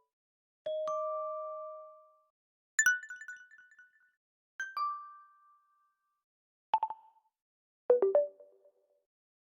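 Stock OnePlus Nord CE 5G alert tones played one after another: five short electronic chimes, each a different sound, with pauses between them. The first is a two-note tone that rings out for over a second; the later ones are shorter, with a few quick bright notes.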